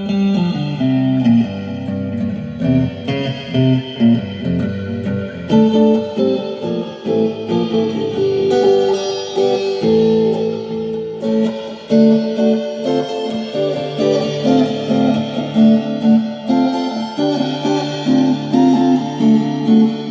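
Guitar played in a free improvisation: an unbroken run of plucked single notes and chords, with the pitch changing several times a second.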